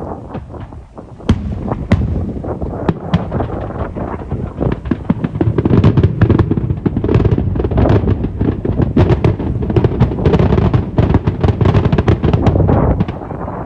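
Fireworks display: aerial shells bursting in quick succession. The bangs come faster from about five seconds in and merge into a continuous crackling rumble, then stop abruptly near the end.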